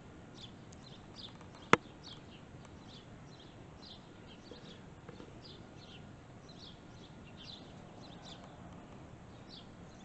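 A small bird chirping over and over, short high notes sliding downward about twice a second. One sharp click comes about two seconds in.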